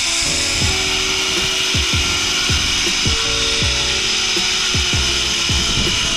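Background music with a beat of deep falling bass kicks and sustained notes, over a steady high-pitched whir that fits a zip-line trolley running along the steel cable.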